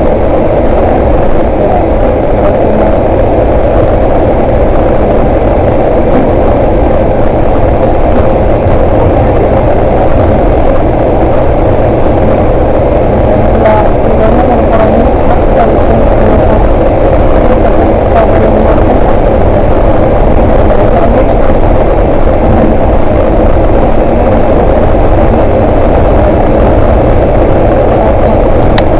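Steady loud rumble of a bus on the move, with engine and road noise filling the cabin and a few faint clicks over it.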